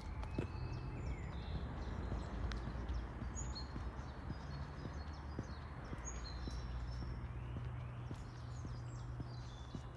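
Footsteps of someone walking, as scattered knocks, while small birds chirp and call in short high notes over a steady low rumble.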